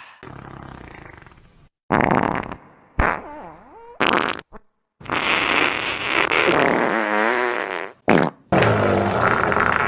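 Fart sound effect played as a string of edited farts: several short ones broken by abrupt silent cuts, then a long one lasting about three seconds from about five seconds in, and two more near the end.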